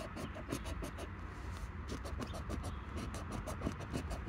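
A coin scratching the coating off a scratch-off lottery ticket in rapid back-and-forth strokes, about seven or eight a second.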